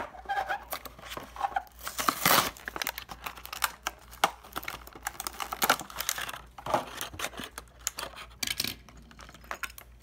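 Clear plastic blister packaging being pulled and torn off the cardboard backing of a die-cast toy car's package: crackling, crinkling plastic with many small clicks, loudest about two seconds in.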